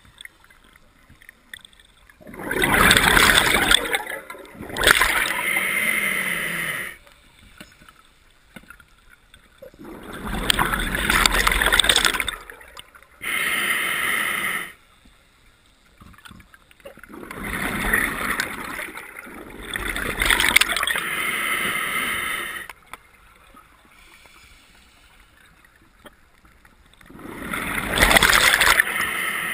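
A scuba diver's regulator breathing underwater: four slow breaths about seven to eight seconds apart. Each breath is a rush of bubbling exhaust air paired with a whistly hiss of air drawn through the regulator.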